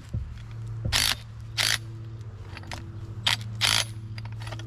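Allis-Chalmers tractor engine idling with a steady low hum, with four short sharp handling noises over it, about one, one and a half, three and a quarter and three and a half seconds in.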